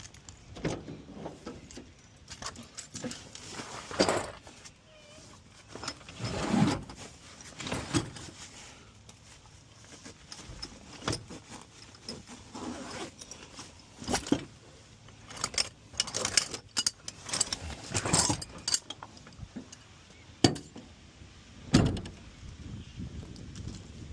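Irregular metallic clinks, clicks and knocks of tools and fittings being handled, some ringing briefly.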